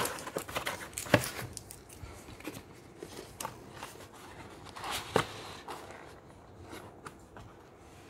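Hands moving a flat cardboard sheet and packaging, with scraping and rustling and two sharp knocks, one about a second in and one about five seconds in.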